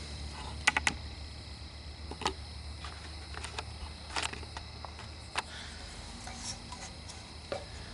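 Scattered light clicks and taps of hands at work: a golf-cart solenoid being handled against a metal controller mounting plate while the camera is moved. A low steady hum lies under them.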